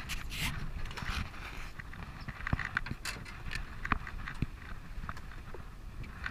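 Scattered light clicks and knocks of a baitcasting reel and rod being handled while a jig and fish are reeled up from deep water, over a low rumble.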